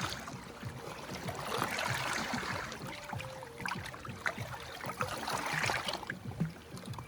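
Moving water, like waves or splashing against a boat, swelling and easing twice, with scattered small knocks.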